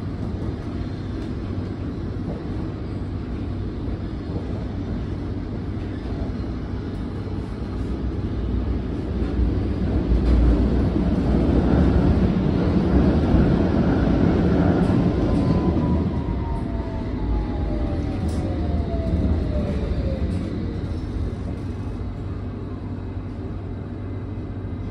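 London Underground S8 Stock train heard from inside the carriage while running in tunnel: steady rail and running noise that swells loudest about halfway through. It then eases off under a whine that falls in pitch, as the train slows on its approach to the station.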